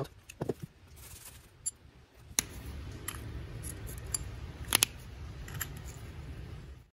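Light, sharp clicks and taps of a marker pen and small metal parts handled on a Quadrajet carburetor's aluminium base plate, a double click near the end, over a low steady rumble; the sound cuts off suddenly just before the end.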